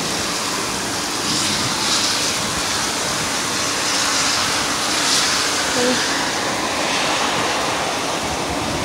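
Heavy thunderstorm downpour of big raindrops falling in a steady rushing hiss, swelling slightly now and then.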